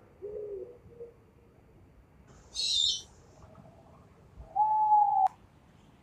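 Eurasian eagle-owl hooting: a low hoot right at the start. About two and a half seconds in comes a short, harsh hissing screech, and near the end a louder, higher drawn-out call that cuts off with a sharp click.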